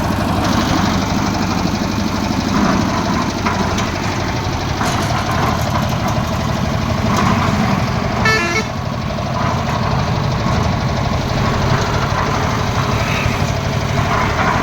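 Full-bag concrete mixer machine running steadily, a constant engine sound. A brief horn-like toot about eight seconds in.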